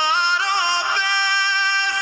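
Hindi film song playing: a male voice sings a drawn-out line with pitch slides and ornaments over a musical backing.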